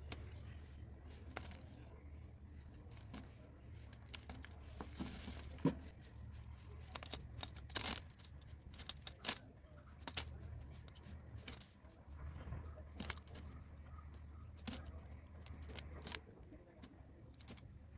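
Blade cutting through dry soap cubes: irregular crisp crunches and cracks, some louder snaps among softer crackling. A low hum runs underneath and cuts out near the end.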